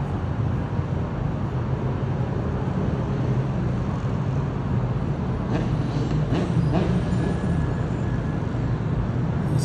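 Steady low rumble of street traffic, with motorbike and quad engines faintly rising in pitch now and then.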